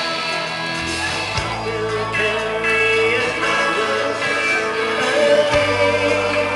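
A live band playing amplified music through stage speakers, with guitar and bass and a sung melody over them, picked up by a compact camera's microphone from within the crowd.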